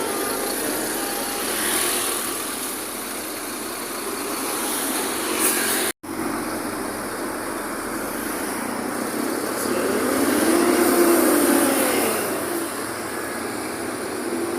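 Road traffic on a city street, a steady noise of passing vehicles, with one engine sound rising and then falling in pitch about ten seconds in. The sound cuts out completely for a moment about six seconds in.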